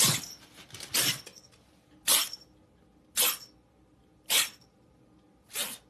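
A pet animal giving short, sharp, noisy bursts of breath, like sneezes or coughs: six of them about a second apart, the last one a little softer.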